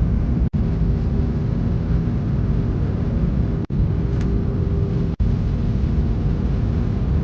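Steady engine noise and low rumble inside a jet airliner's cabin as it rolls along the ground, with a faint steady hum; the sound cuts out for a split second three times.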